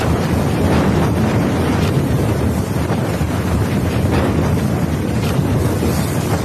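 Strong storm wind blowing hard, with heavy wind noise on the microphone: a loud, steady rushing rumble.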